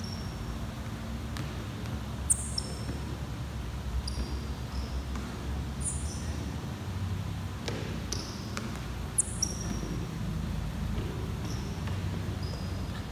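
Thuds of a person's hands and feet landing on a rubber gym floor during burpees over a barbell, the loudest about two seconds in and about nine seconds in, over a steady low hum. Short, high, falling chirps recur throughout.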